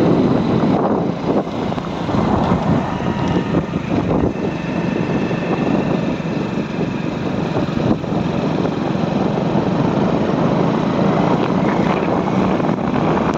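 Small commuter motorcycle's engine running steadily while riding, with wind buffeting the microphone.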